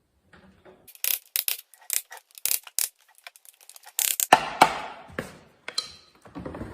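Metal parts and tools clinking and clattering on a shop bench: quick light clicks, then several louder clanks, one with a short metallic ring near the end.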